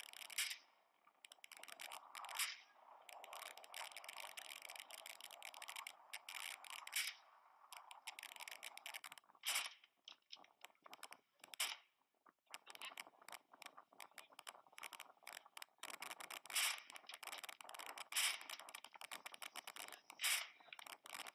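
Crackly, distorted phone-recorded sound from a ship at sea: a steady rush of wind and noise full of small clicks, broken by a handful of louder sharp cracks, some about two seconds apart.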